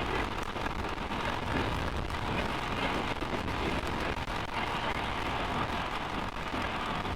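Steady wind noise buffeting the microphone of a moving Honda CRF450RL dirt bike, a dense crackling hiss over a low rumble, with the bike's engine and tyres blended underneath.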